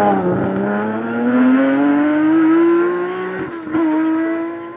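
BMW M3 (E46) hillclimb race car accelerating hard out of a hairpin, its engine note rising steadily in pitch for about three seconds. A quick gear change follows, and the engine pulls on and fades as the car climbs away up the road.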